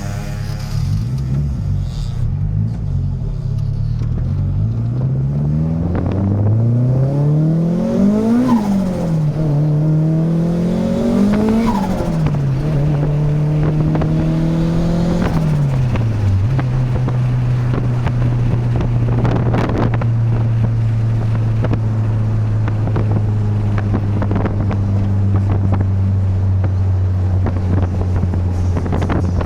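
Turbocharged Honda B16 1.6-litre four-cylinder engine revved up and dropped back several times, with turbo flutter as the throttle snaps shut. About halfway through it settles into a steady, even note.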